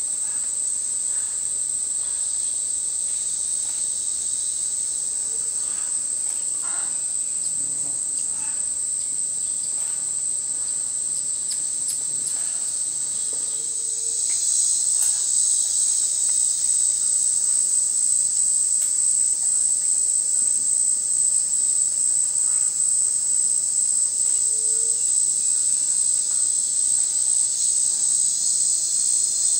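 Steady high-pitched drone of a tropical forest insect chorus, stepping up in loudness about halfway through, with a few faint short calls underneath.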